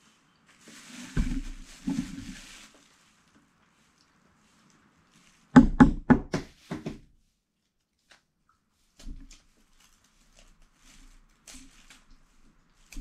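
A hard-boiled egg knocked against a plastic-covered tabletop about six times in quick succession to crack the shell, followed by faint crackling clicks as the shell is peeled. Two short rustling sounds come before the knocks.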